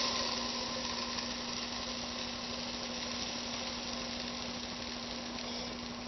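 Steady hiss with a low steady hum underneath, slowly fading a little.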